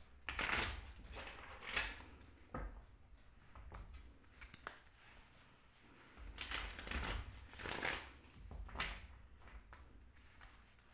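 A tarot deck shuffled by hand: short bursts of card rustling and riffling, the busiest stretch a little past halfway.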